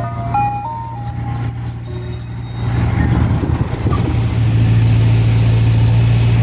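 Ice cream truck's chime melody playing its last few notes, fading out in the first two seconds, over the truck's engine running with a steady low hum. The hum grows louder and steadier about halfway through.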